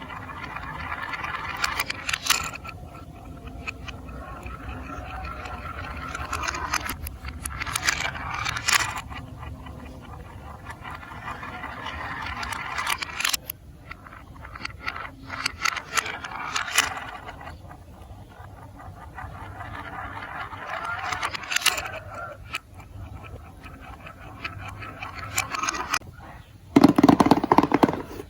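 Marbles rolling down a plastic marble-run track in repeated runs of a couple of seconds each, with sharp clicks as they drop and strike the pieces. Near the end comes a loud, fast clatter of many clicks.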